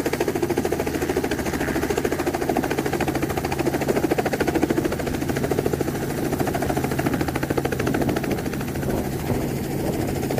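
Robinson R44 helicopter's main rotor and engine running steadily while it hovers low to land, with a fast, even beat from the blades.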